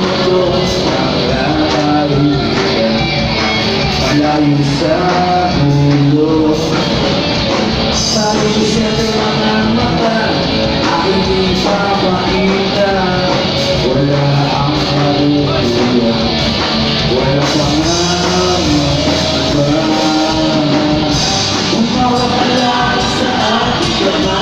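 Live rock band playing a song: a male singer over electric guitars, loud and continuous.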